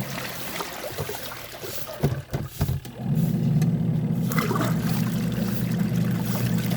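Washing machine running with water sloshing, its motor giving a steady low hum. The motor stops at the start, a few knocks follow about two seconds in, and the motor starts again about a second later.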